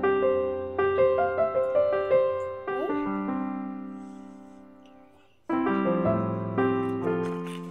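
Background piano music: a slow phrase that fades out, then starts up again about five and a half seconds in.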